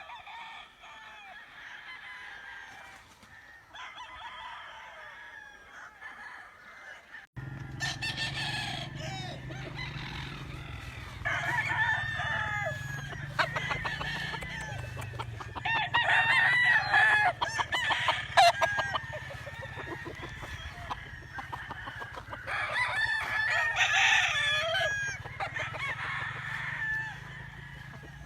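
Giro Grey gamecocks crowing over and over, with hens clucking, the calls overlapping. About seven seconds in the sound changes abruptly: the calls get louder and a steady low hum runs underneath.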